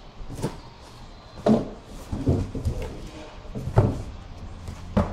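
Several dull knocks and bumps of a white cabinet panel being handled and tipped upright on cardboard and plastic wrapping. The loudest come about a second and a half in and just before four seconds in.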